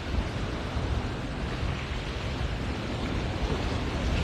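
Steady rushing noise with an uneven low rumble underneath, growing slightly louder over the few seconds.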